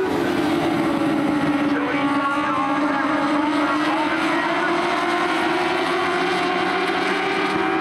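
Race car engines running at speed on a short oval track, several engine notes at once. The main note dips over the first couple of seconds, then slowly climbs again.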